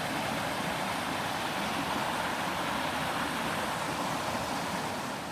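Small river rapids rushing steadily, an even sound of running water.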